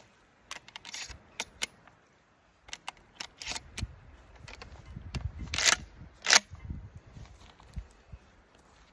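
Irregular mechanical clicks and knocks of handling, with two loud sharp clacks about two-thirds of a second apart a little past the middle.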